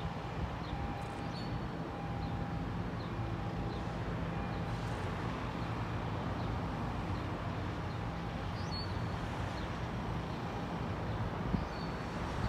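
Diesel locomotives of a distant approaching freight train: a steady low engine rumble, with faint high bird chirps now and then.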